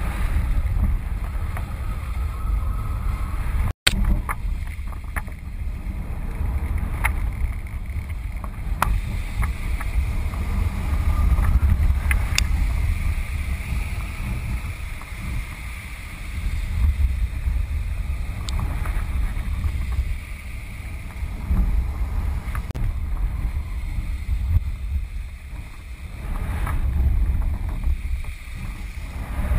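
Wind buffeting the microphone of a camera carried aloft on a kite: a steady low rumble that swells and eases, with a few light clicks. The sound cuts out for an instant about four seconds in.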